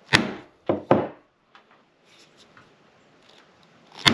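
Hammer striking a steel punch to pierce holes in a sheet of tin backed by a wooden board: three sharp strikes in the first second, a few light taps, then another sharp strike near the end.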